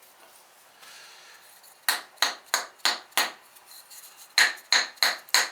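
Sharp clinking knocks of fired ceramic pestles being tapped to pop them off the little clay pads they were fired on: two runs of about five quick taps, each with a bright ring. The pads are stuck fast, which the potter puts down to a little wood ash.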